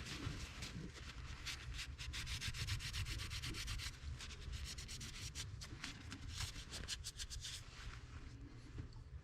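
Steel rasping and scraping against steel in a quick run of short strokes, several a second, as a small 7mm wrench works the nut welded onto a broken AR-15 gas key screw. The strokes stop about 8 seconds in.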